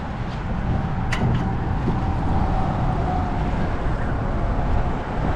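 Road traffic: a low rumble that grows over the first couple of seconds, with a faint steady whine through the middle.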